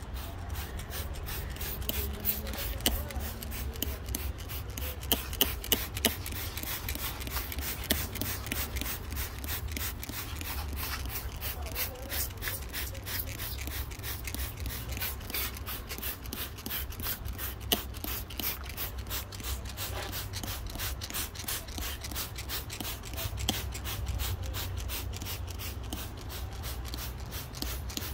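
Hand spray bottle being squeezed over and over, misting cleaner onto the engine bay: a quick run of short hissing squirts, several a second, over a steady low rumble.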